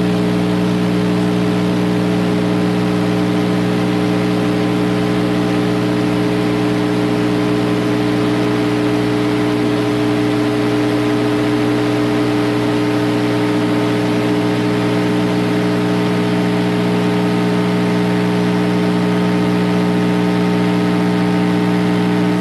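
Loud, steady buzzing hum with a hiss over it, unchanging throughout: the dead air of a weather radio station that has gone off the air.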